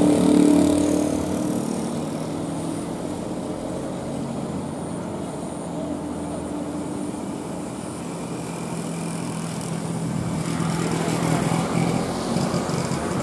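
Road traffic on a steep hill: passing cars and motorbikes over the steady drone of a heavy container truck's diesel engine climbing slowly. The loudest engine passes in the first second or two and fades, and the traffic grows louder again near the end.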